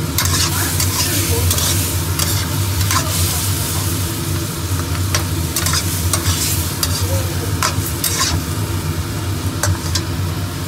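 Shrimp and chopped vegetables sizzling in a hot wok while a slotted spatula stirs and scrapes them, knocking against the pan at irregular moments. A steady low hum runs underneath.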